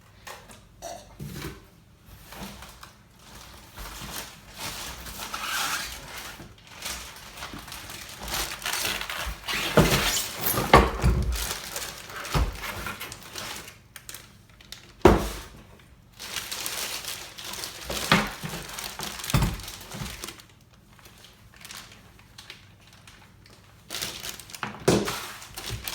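Cardboard box and plastic packaging being handled and pulled apart, with rustling and scraping and several sharp thuds as the heavy unit inside is moved.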